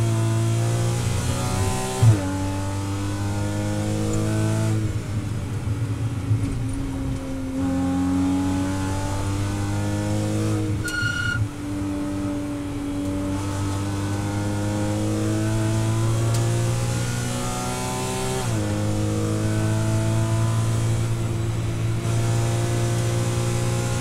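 Porsche Cayman 981's naturally aspirated flat-six, heard from inside the race car's cabin, revving up hard under full acceleration, with quick upshifts about two seconds in and again near the end that drop the pitch sharply. Around the middle the revs briefly ease and waver, and a short beep sounds.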